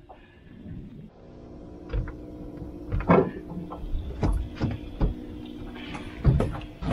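Cast net being hauled in and gathered on an aluminium boat deck: the rope and the net's lead weights knock and clatter against the boat in a series of sharp knocks, over a steady hum.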